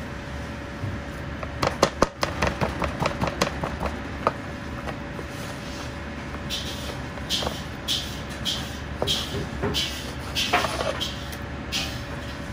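Cleaver knocking and tapping on a plastic cutting board as raw chicken thigh is trimmed, in a quick run of sharp knocks between about two and four seconds in, over a steady background hum. Later comes a series of short scraping sounds, about two a second.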